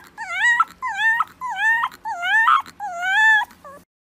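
Fluffy white puppy whimpering in about five short, high calls in a row, each dipping and then rising in pitch, stopping shortly before the end.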